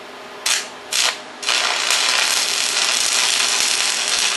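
Stick-welding arc from a flux-coated steel electrode scratch-started on steel plate: two brief sputters as the arc catches and drops out, then about a second and a half in the arc takes hold and runs with a steady, loud hiss.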